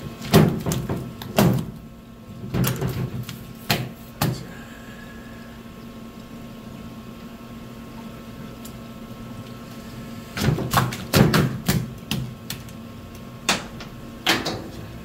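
Knocks and slaps on a plastic cutting board as a large live olive flounder is held down and turned over, in several short clusters with quiet gaps between them.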